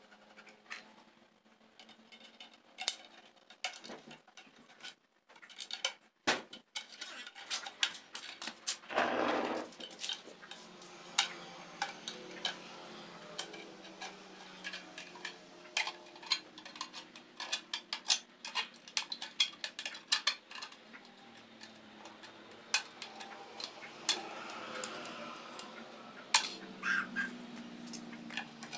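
Irregular light metallic clinks and taps as hand tools and a steel exhaust pipe are handled and worked on a concrete floor, with a brief louder scrape about nine seconds in.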